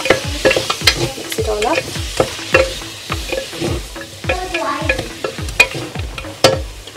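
Wooden spatula stirring and scraping chicken pieces in spices around a stainless steel pressure cooker pot, knocking irregularly against the metal, with the loudest knocks late on, while the chicken sizzles over high heat.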